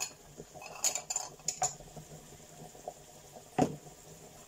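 A few sharp clinks and knocks of kitchen utensils and cookware, the loudest a heavier knock about three and a half seconds in.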